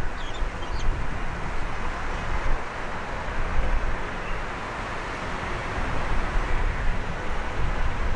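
Wind buffeting the microphone over a steady wash of distant city traffic noise, with a few short bird chirps in the first second.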